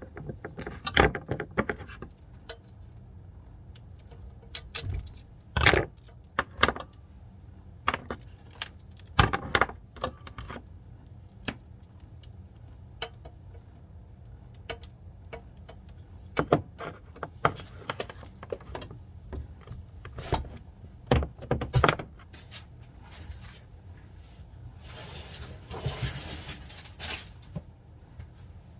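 Scattered clicks, knocks and light rattles of objects being handled, over a low steady hum, with a few seconds of rustling near the end.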